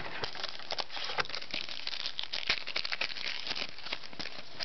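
Trading cards and their foil pack wrapper being handled: a dense, irregular run of crinkles and small clicks.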